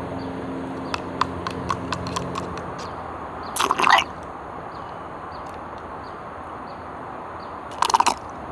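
Drinking straw slurping the last of a milk tea with nata de coco jelly from the bottom of a paper cup: small wet clicks, then two loud crackling slurps, about three and a half seconds in and again near the end, as the straw draws air with the dregs.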